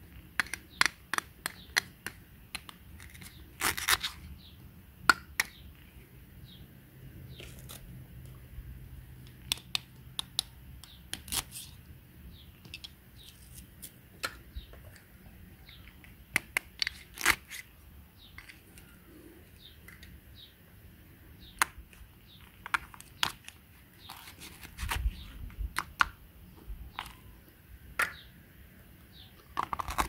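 Velcro-joined toy plastic fruit being cut with a plastic toy knife: repeated sharp plastic clicks and taps, with short Velcro rips as the halves are pulled apart.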